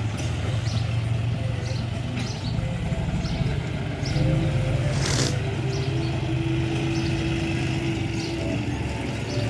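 Tractor diesel engine idling steadily with a low hum, and a short burst of noise about five seconds in.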